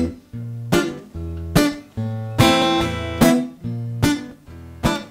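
Acoustic guitar strummed in an instrumental break: strong chord strums a little under a second apart, each left to ring, with a few lighter strokes between.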